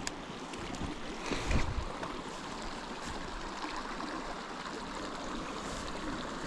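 A small mountain creek running steadily over stones. About a second and a half in there is one brief, louder muffled bump.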